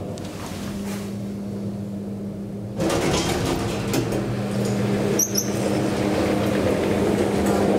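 A traction elevator car with a steady low hum. About three seconds in its doors slide open and the louder station noise comes in, with a brief click and squeak a couple of seconds later.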